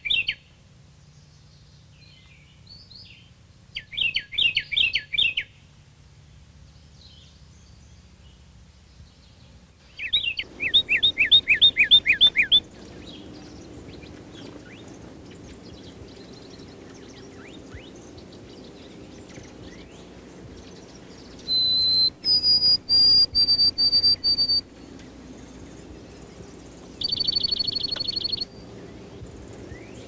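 Songbirds singing in separate phrases: quick runs of down-slurred whistles in the first half, then a broken series of high thin notes, and a short high trill near the end.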